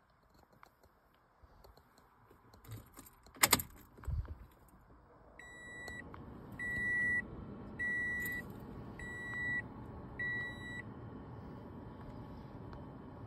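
Keys jingling and a sharp click, then a Toyota RAV4's in-car warning chime beeping five times, evenly spaced about a second apart, over a steady low hum.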